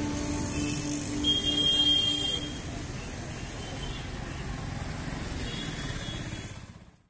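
Street traffic noise. It swells about a second in, with a brief high whine, then settles into a steady hum and fades out near the end.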